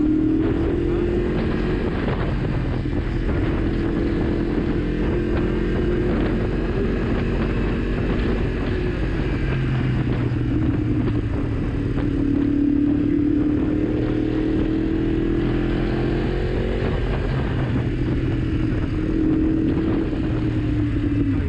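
Yamaha MT-10's crossplane inline-four engine running under way, its note rising and falling several times with the throttle, under steady wind noise on the microphone.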